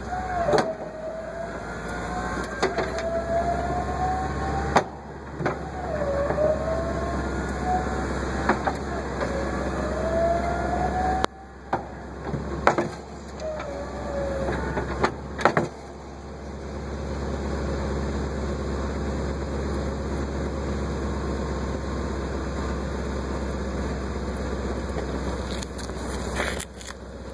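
Meyer snowplow's electric-hydraulic pump whining in several short runs as the blade is angled, its pitch sliding up and down, with sharp knocks between runs, over the Ford F-250's engine idling. From about 16 seconds in only the steady engine idle remains.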